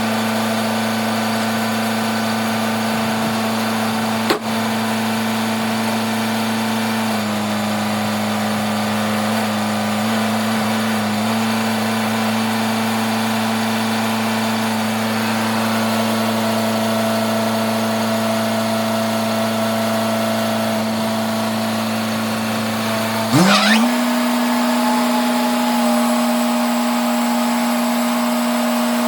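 Sawmill engine running steadily, with a sharp click about four seconds in. Near the end it revs up in a quick rising sweep and settles at a slightly higher, steady speed.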